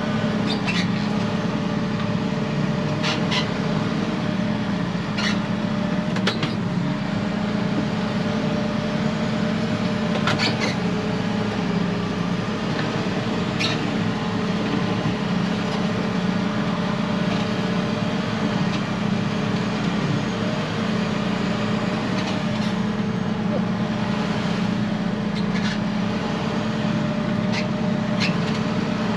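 Tractor engine running at a steady speed, with short rattles and knocks every few seconds.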